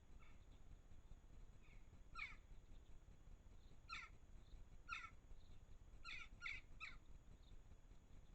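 Faint, harsh bird calls, crow-like, repeated about six times at irregular intervals, with three in quick succession near the end, over a low steady background hiss.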